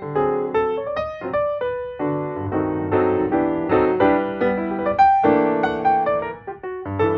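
Background piano music: a keyboard melody of quick, separate notes.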